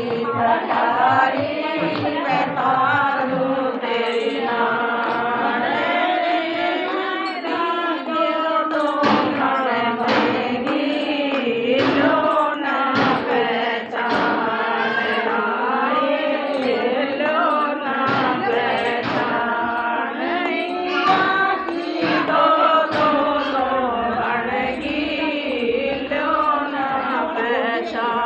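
A group of women singing a Hindi guru bhajan together, keeping time with hand claps.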